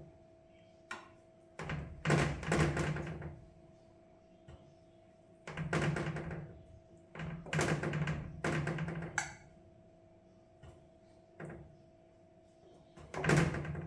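A metal spoon scraping and knocking against a metal bowl and baking tray in several short bursts of clatter, as crumbled feta is spooned onto roasted eggplant halves. A faint steady hum runs underneath.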